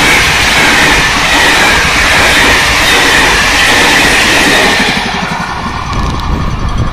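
Passenger coaches of a Moroccan electric-hauled train passing close at speed: a loud, steady roar of steel wheels on rail with a strong high rushing band. It drops off about five seconds in as the last coach goes by and the train recedes.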